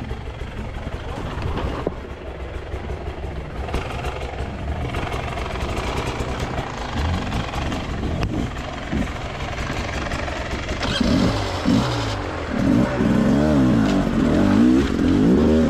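Enduro motorcycle engine running under way, its pitch rising and falling as the throttle is worked, getting louder with quick revs in the last few seconds.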